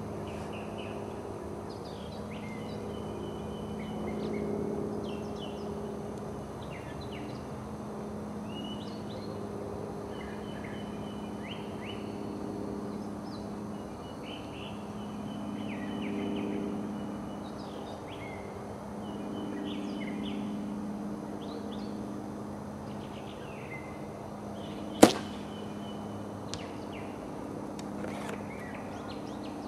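A compound bow (a 70-pound Mathews Z7) shot once, a single sharp snap of the string about 25 seconds in. Small birds chirp throughout over a low steady hum.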